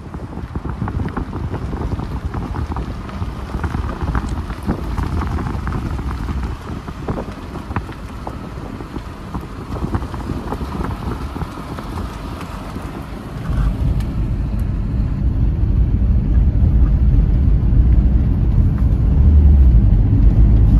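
Wind rushing over a phone microphone held at the open window of a moving car, with the car's road noise underneath. The rumble grows louder and heavier about two-thirds of the way through.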